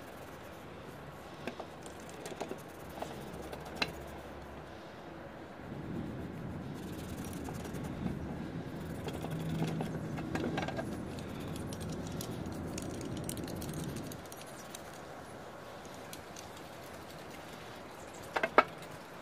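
Rusty locking pliers clicking and rattling as they are wiped and worked by hand, with a few light metallic clicks early on and a sharp clack near the end. A low rumble rises for about eight seconds in the middle.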